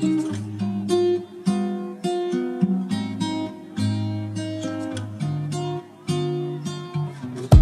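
Background music: an acoustic guitar picking a tune of single ringing notes and chords.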